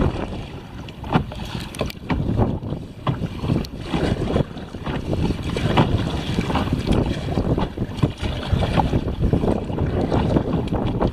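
Wind buffeting the microphone, with water sloshing and splashing around a kayak in short, irregular bursts.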